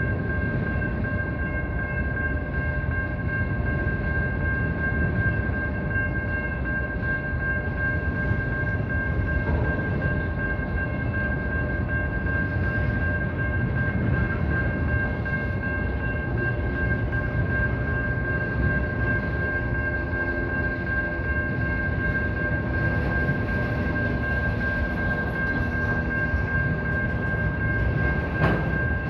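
Norfolk Southern freight train cars rolling through a road crossing, their wheels rumbling over the rails, with the crossing's warning bell ringing steadily over the noise. One sharp clank near the end.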